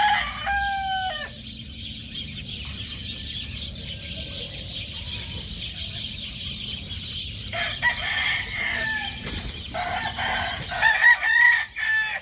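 Roosters crowing: one crow at the very start, another about eight seconds in, and a loud one near the end, with chickens calling in between.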